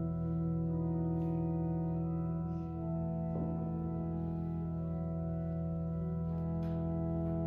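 Organ playing slow, sustained chords that change every couple of seconds.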